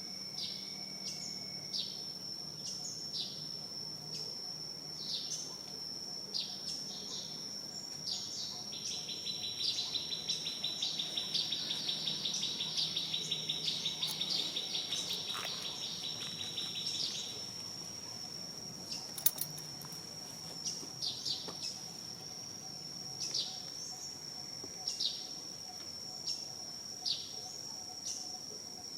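A steady high-pitched insect drone with repeated short chirps over it, and a rapid buzzing trill from about nine to seventeen seconds in.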